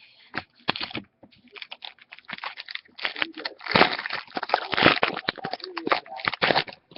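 Hockey trading cards and their packaging being handled: a dense, uneven run of rustles, crinkles and clicks, busiest about midway.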